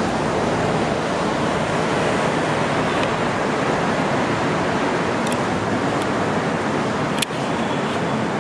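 Steady roar of city street and traffic noise, with a single sharp click about seven seconds in.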